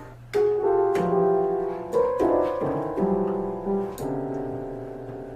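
Piano keys pressed by a dog, sounding about a dozen notes one or two at a time, each ringing on and fading, with no steady tune.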